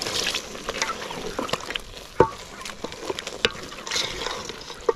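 Meat stew sizzling in a metal pot as water is poured in from an enamel cup at the start, then stirred with a wooden spoon that knocks against the pot's side a few times, loudest about two seconds in.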